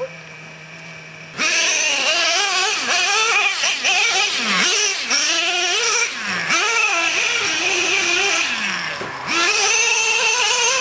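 Small nitro engine of a Traxxas Revo RC monster truck idling on a steady note, then from about a second and a half in revving hard. Its pitch repeatedly rises and falls as the throttle is opened and let off.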